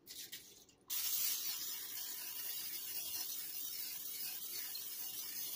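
Butter-flavored cooking spray sprayed over raw chicken wings: one long steady hiss that starts about a second in and keeps going.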